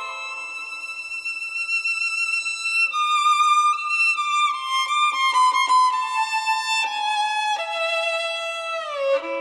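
Violin playing a slow, high melody of long held notes with vibrato, sliding down in pitch between notes, most plainly near the end.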